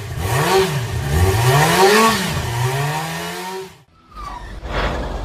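An engine revved twice, its pitch rising and falling with each blip, then held at a steady higher speed before cutting off about four seconds in. A short, noisier sound follows near the end.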